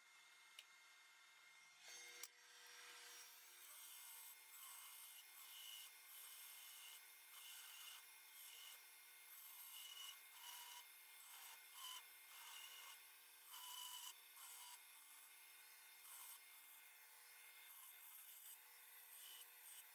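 Faint belt grinder grinding down weld beads on a press die, the sound swelling and fading in short passes every second or two as the steel is pressed to the belt.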